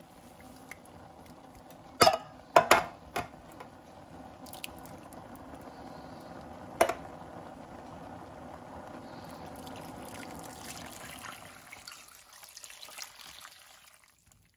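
Tinned chopped tomatoes tipped out of the cans into a metal stew pot: a few sharp knocks of the cans on the pot about two to three seconds in and once more near seven seconds, over a steady wet pouring and sloshing that dies away near the end.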